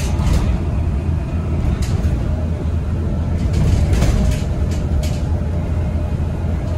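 Inside a moving city bus: the steady low rumble of the engine and road, with a few short knocks or rattles.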